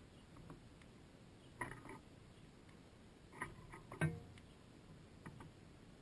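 A house sparrow at a seed-filled bird feeder, heard close up from inside the feeder: a few scattered taps, clicks and seed rattles as it pecks and shifts about, with a sharper knock about four seconds in.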